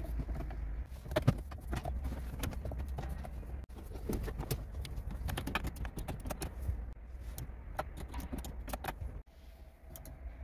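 Plastic clicks and taps from a Kia New Morning's center fascia trim panel being pressed into its clips and its dashboard switches being pushed: irregular clicks throughout, over a low steady rumble.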